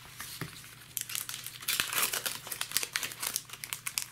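Foil Pokémon booster pack wrapper crinkling and rustling as gloved hands handle it, a dense crackle that gets busier about a second in.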